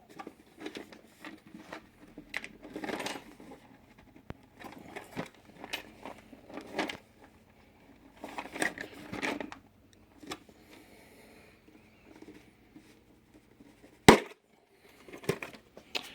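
Rustling and clicking of packaging and a polymer ammo container being opened by hand, with one sharp snap near the end.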